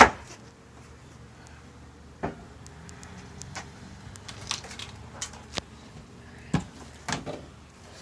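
Scattered light knocks and clicks of wooden floorboards being handled and pried during demolition, with one sharper knock at the start.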